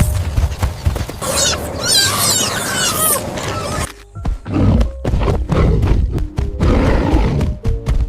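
Dramatic background music mixed with animal roars and rumbling. About a second in there is high, wavering screeching that lasts a couple of seconds.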